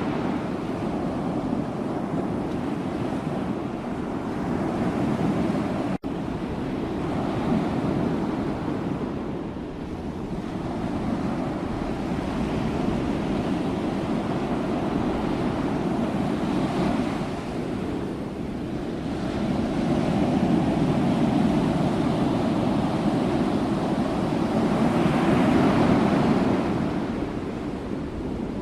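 Sea waves: a steady wash of surf that swells louder and eases off every few seconds. There is a momentary dropout about six seconds in.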